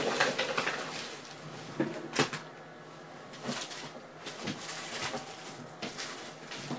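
Trading cards and their packaging being handled: a sharp knock or click at the start and another about two seconds in, then short rustling and sliding scrapes.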